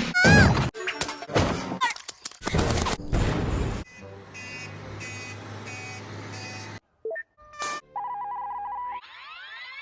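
A rapid string of assorted cartoon sound effects: a warbling pitch glide, a burst of loud hits and crashes, a pulsing ringing tone, a few short blips, and a rising swoosh-like sweep near the end.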